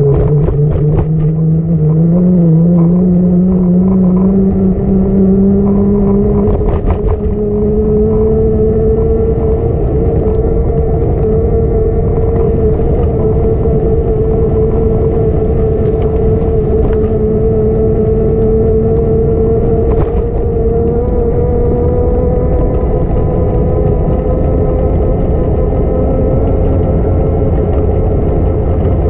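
A vehicle's motor whine that rises in pitch over the first several seconds and then holds nearly steady, over a continuous low rumble.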